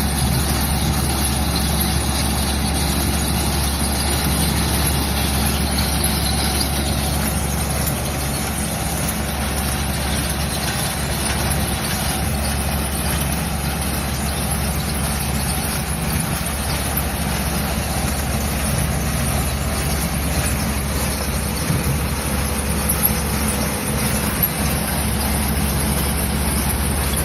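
Onion-crushing farm machine running steadily: a constant low hum under even mechanical noise, unchanging throughout.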